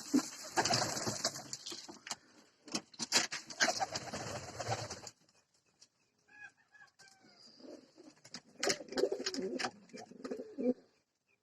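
Domestic pigeons cooing, with rustling and sharp clicks that are busiest in the first half. A few short, high, falling calls come about six to seven seconds in, and low coos come near the end.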